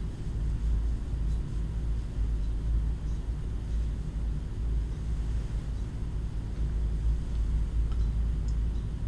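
Steady low background rumble, with a few faint ticks here and there.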